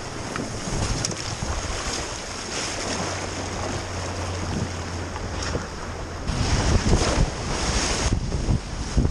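Fast whitewater river current in high water, rushing and splashing, with wind buffeting the microphone. The rush grows louder about six seconds in.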